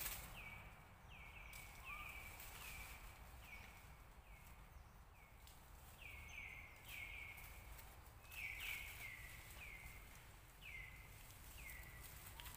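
Faint repeated chirping from a wild animal: short calls, each sliding down in pitch, about two a second, some overlapping.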